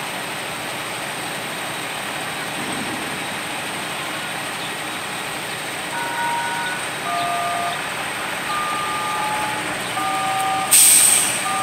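Steady outdoor background noise. From about halfway there is a run of clear single beeping tones that step between different pitches. Near the end comes a sudden loud hiss lasting under a second, as the track worker's tool at the rail starts throwing sparks.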